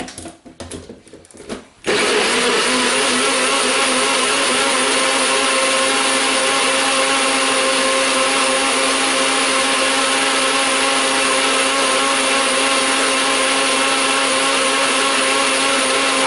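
NutriBullet Pro 900 blender: a few knocks and clicks as the cup is pressed onto the base, then about two seconds in the motor starts and runs at a steady high speed, blending kiwi, banana and almond milk into a smoothie.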